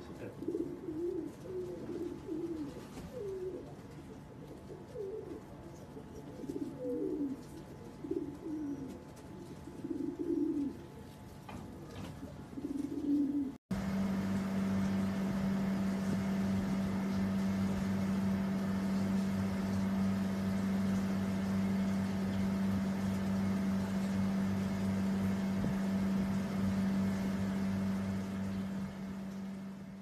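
Fantail pigeons cooing, a run of low, wavering coos for about the first half. A short dropout follows, and then a steady, unchanging low hum takes over until the end.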